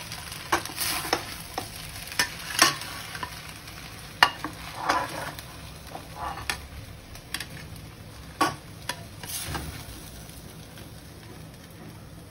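Hakka noodles sizzling in a stainless-steel wok over a gas flame, a steady low hiss, with scattered knocks and scrapes of a wooden spatula and utensils against the wok and plate as the noodles are served.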